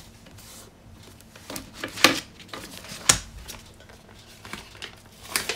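Hands handling a spiral planner and sticker sheets on a wooden desk: soft paper rustling with a few sharp taps, the loudest about two and three seconds in.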